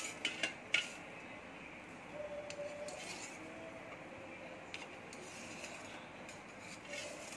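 Knife cutting soft khaman dhokla on a steel plate: a few light clicks and scrapes of the blade against the metal, the sharpest in the first second, then fainter taps.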